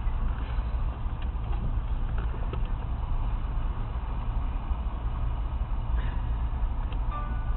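Steady low rumble of road traffic, vehicle engines idling and running, with a few faint clicks on top.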